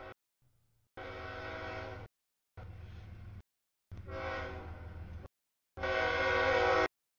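Air horn of a CSX freight locomotive sounding a series of four blasts, each about a second long, as it approaches a grade crossing. The blasts grow louder overall, the last the loudest.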